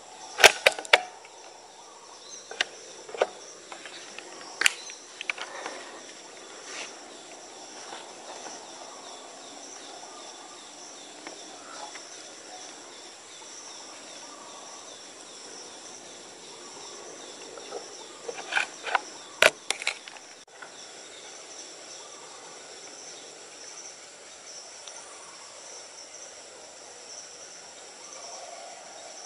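Steady high-pitched chorus of forest insects, unchanging throughout. Two clusters of sharp clicks and knocks cut through it, one right at the start and another about two-thirds of the way in.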